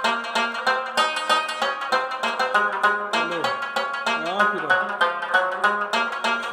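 Background music: a fast, steady run of quick plucked-string notes.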